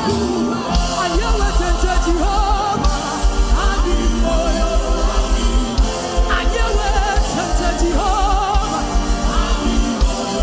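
Gospel worship music: a singing voice with wavering, held notes over instrumental backing and a fast, pulsing bass beat that comes in about a second in.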